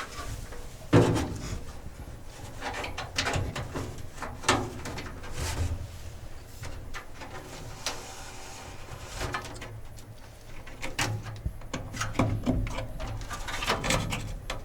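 Irregular clicks, knocks and rustling of a wiring harness being handled and fed through a hole in a bill changer cabinet, with a sharp knock about a second in.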